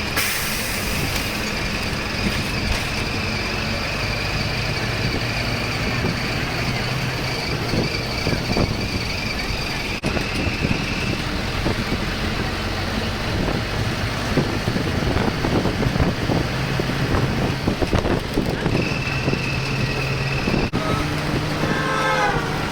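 Road vehicle noise: a steady engine hum over traffic, with a couple of abrupt breaks.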